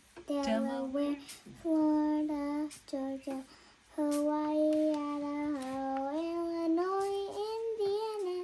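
A young child singing a simple tune in long held notes, stepping upward in pitch over the last few seconds.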